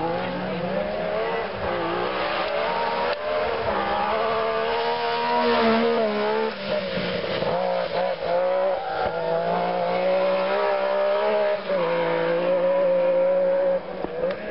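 Rally car's engine driven hard on a gravel stage, its pitch climbing and dropping repeatedly with gear changes and lifts off the throttle, holding high near the end before falling away about fourteen seconds in.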